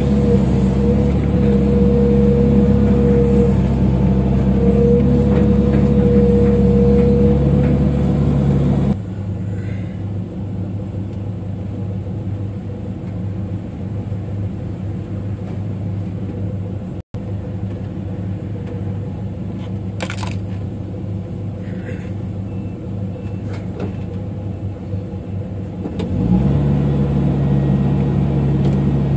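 Excavator diesel engine and hydraulics working, loud with a steady whine for about the first nine seconds. It then drops abruptly to a quieter, steady engine sound and comes back up loud near the end.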